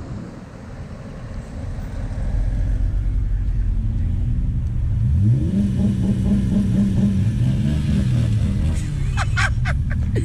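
A motor vehicle engine getting louder over the first few seconds, then revving up in pitch about halfway through and holding a steady higher note. A few short, sharp high-pitched sounds come near the end.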